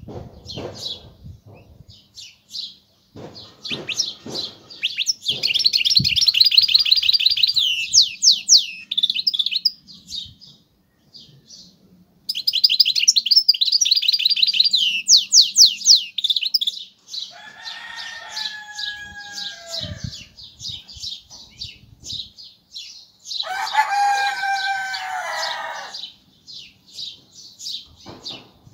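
Goldfinch × canary hybrid (mule) singing: fast high twittering with two loud, rapid trilled passages. Lower-pitched notes come in near the middle and again later.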